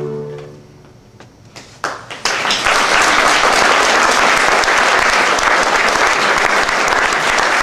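An orchestra's last held chord fading away, then audience applause: a few scattered claps about two seconds in, swelling within a moment into steady clapping from a full room.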